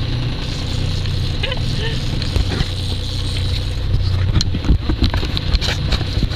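Steady low drone with wind and water noise aboard a sailboat under way, with a run of knocks and clatters of gear being handled about two-thirds of the way through.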